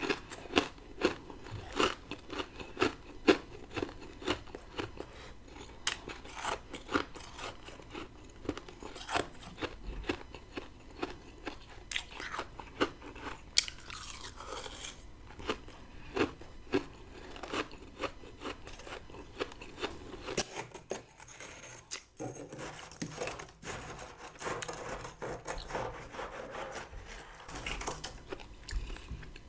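Close-miked chewing of humidifier frost from a deep freezer: crisp, rapid crunches at roughly two a second, becoming softer and denser in the second half.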